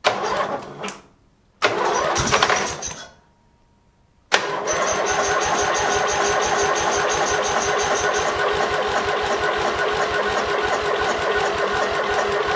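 Lawn tractor engine cranked by its electric starter after a spritz of starting fluid: two short tries, then one long steady crank of about nine seconds. No fuel is reaching the carburetor.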